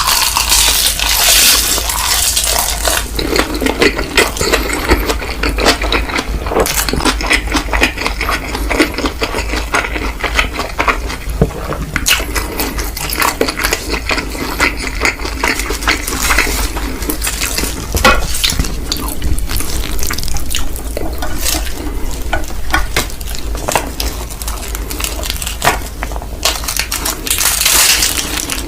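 Close-miked eating of mi goreng instant noodles with laver and kimchi: continuous wet chewing and slurping, full of small clicks.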